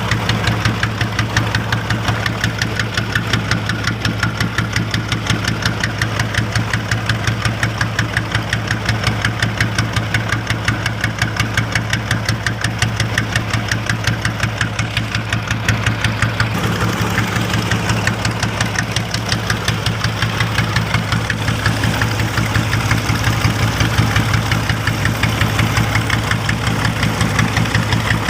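Small fishing boat's engine idling steadily, with an even, rapid knocking beat over a constant low hum.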